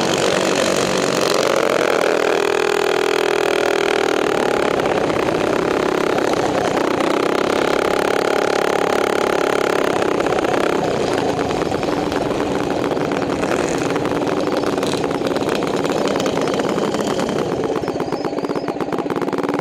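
Mini bike's small engine running close by, climbing to higher revs and holding there twice in the first half, then settling to a lower, steadier run.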